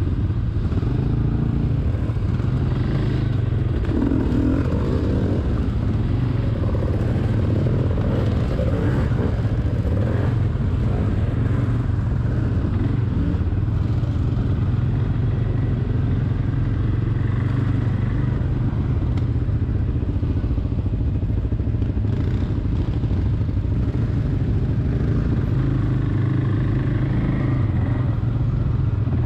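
Quad bike (ATV) engine running steadily while riding along a trail.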